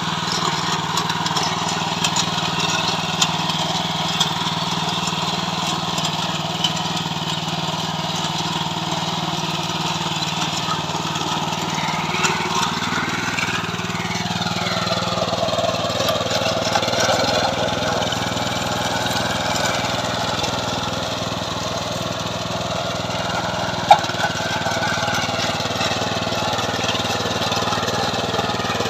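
Engine of a KB-365 mini tiller running steadily, its note shifting around halfway through as the load changes, with scattered small clicks and one sharp knock a few seconds before the end.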